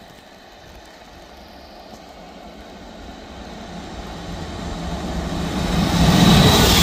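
DB Class 146 electric locomotive approaching on the near track and running past close by, growing steadily louder to its loudest about six seconds in. A steady low hum and a faint high whine run under the rushing noise of the wheels.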